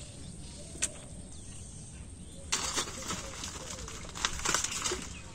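Water hyacinth being broken and pulled by hand: a single sharp snap a little before a second in, then from about two and a half seconds a dense run of crackling, snapping and rustling of the stems and leaves.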